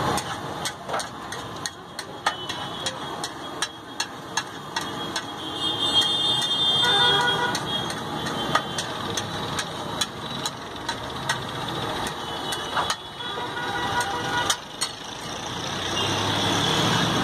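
Steel spatula striking and scraping on a large flat iron tawa as pav bhaji is stirred and spread: repeated sharp clinks, one or two a second, over traffic noise.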